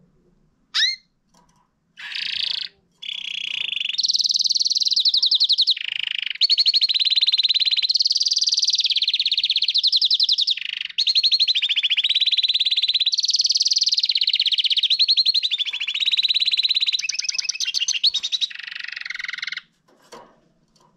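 Domestic canary singing its courtship song: a short call, then a long unbroken run of fast rolling trills that switch pitch and pattern every second or two, stopping suddenly near the end.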